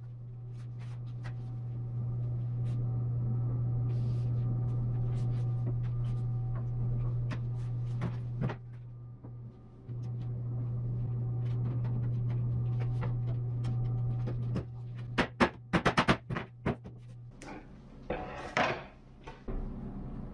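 A steady low machine hum with scattered light clicks, then a quick run of sharp wooden knocks and clacks and a short rasping noise near the end.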